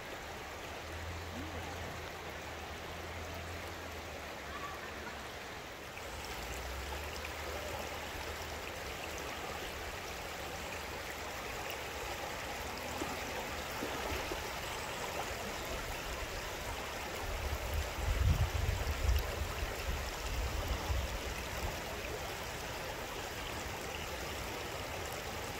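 Shallow river running over stones and gravel: a steady rush of flowing water. A low rumble on the microphone comes in about two-thirds of the way through and is briefly the loudest thing.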